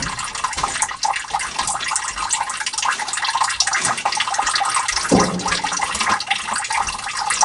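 Water trickling and splashing steadily into a sump pit as the basin fills; the sump pump has not yet switched on.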